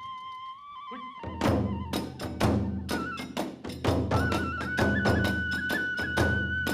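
Kagura hayashi: a transverse bamboo flute holds a high note, then about a second in the drums and small hand cymbals come in with a quick run of strikes while the flute carries on.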